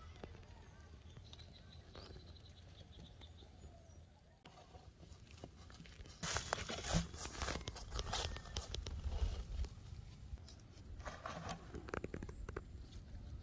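A few seconds of quiet outdoor ambience. Then footsteps swish through grass and a woven plastic sack rustles and crinkles as it is carried, with a burst of scraping and rustling at the ground near the end.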